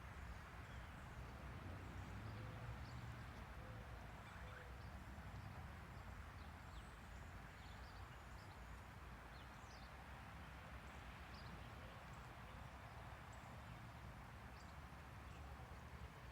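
Faint outdoor rural ambience: a steady low background noise with scattered short, high bird chirps.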